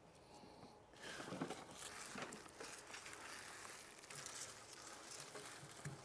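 Rustling and crackling of harvested elephant garlic plants, their leafy stalks brushing and crumpling as they are piled into a loader bucket, starting about a second in.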